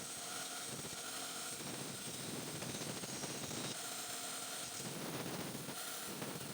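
Woodworking machine running with a steady hum, its lower rumble swelling and easing every second or two.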